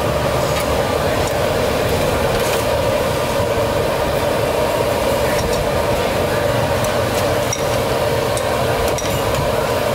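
Steady loud roar of a busy street-food stall, with a few light clinks of utensils and bowls scattered through it.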